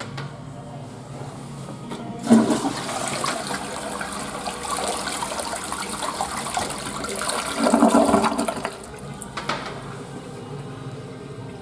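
Toilet flushing: a sudden rush of water starts about two seconds in and runs for about six seconds, growing louder just before it stops, then drops back to a low background.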